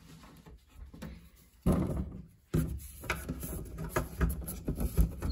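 Knocks, clicks and rubbing of the Graco Hadley crib's white wooden panels and drawer parts being handled and fitted. The sound comes in bursts, breaking off abruptly about two and a half seconds in and starting again at once.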